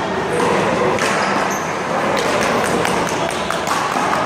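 One-wall handball rally: a small rubber ball smacking off players' hands, the wall and the pavement in quick succession, over background voices.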